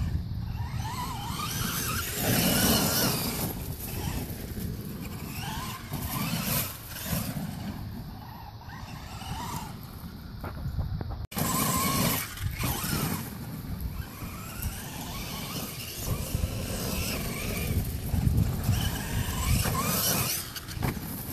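Brushless electric motor of a Traxxas E-Maxx RC monster truck (6-pole 1900kv motor on a 4-cell pack) whining as it drives, the pitch rising and falling with the throttle. The sound cuts out for an instant about halfway.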